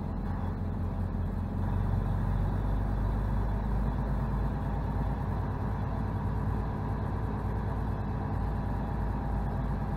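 Semi truck's diesel engine running steadily, a low hum that gets a little louder about two seconds in.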